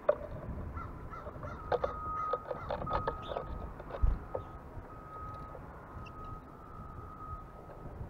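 Wild birds calling: a quick run of short calls in the first half, thinning out after about four and a half seconds.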